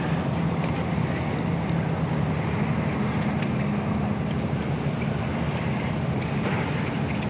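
A steady low engine drone, with a second, slightly higher tone joining it a few seconds in.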